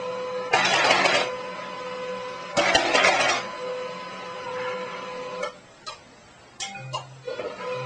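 Desktop printer printing: a steady motor whine with two loud rasping passes, about half a second in and again about two and a half seconds in, then a few sharp clicks near the end.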